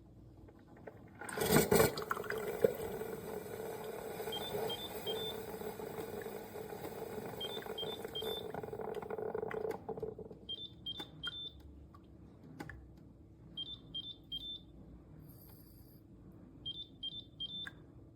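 Instant Pot single-serve pod coffee maker running a brew. About a second in there is a loud burst of noise, then the pump hums steadily for about nine seconds. All the while the machine beeps in quick sets of three about every three seconds, and the beeping carries on after the pump stops.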